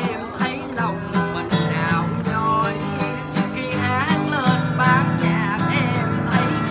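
A solo voice sings a Vietnamese song, holding notes with vibrato, over guitar accompaniment with a steady bass line.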